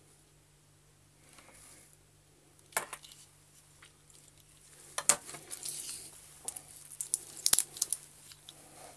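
Handling noises: a sharp click about three seconds in, then a busier run of clicks and light clatter as a digital caliper is put aside and a wooden-link watch bracelet is handled and put on the wrist.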